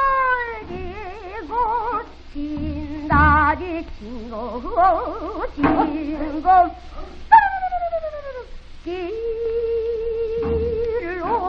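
Female pansori singing on an early gramophone recording: long melismatic notes with heavy vibrato, sliding down in pitch near the start and again a little past the middle, then one steady held note, with a few low drum strokes underneath.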